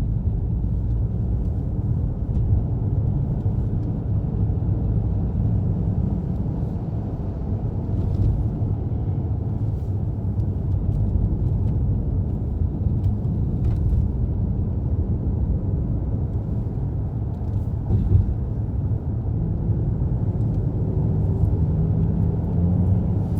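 Road and engine noise inside a moving car: a steady low rumble of tyres and engine, with a faint rising engine tone near the end as the car speeds up.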